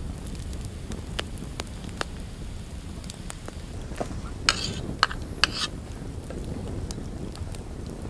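Wood campfire crackling: scattered sharp pops over a low steady rumble of flame, with a cluster of louder snaps about halfway through.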